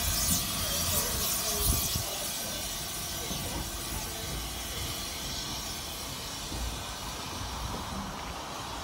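Small industrial steam tank locomotive and brake van pulling away slowly: steam hissing and wheels rumbling on the rails, with a few knocks in the first two seconds, then a steadier, slightly quieter running sound as it moves off.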